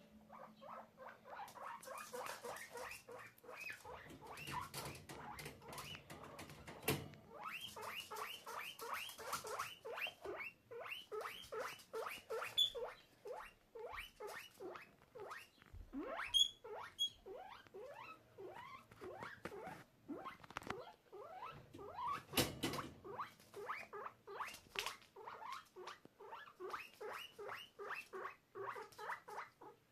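Guinea pig squeaking over and over, short rising squeals at about three or four a second with a few knocks among them: a guinea pig calling for a separated cagemate.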